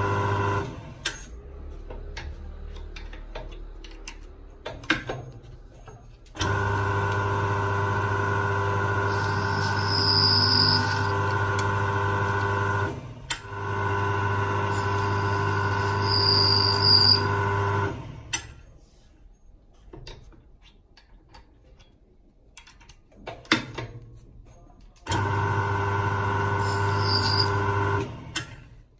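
Jewelry lathe spindle motor running with a steady hum, stopping and starting several times. Twice it is joined by a short high scraping as the mill grain wheel cuts into the gold ring, and a few light clicks fall in the pauses.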